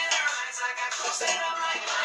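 Background music: a pop song with a singing voice.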